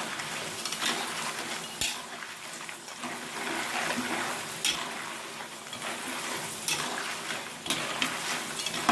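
A metal spatula stirs and scrapes raw crackers through frying oil in an aluminium wok, with a light sizzle throughout. The spatula knocks sharply on the pan now and then.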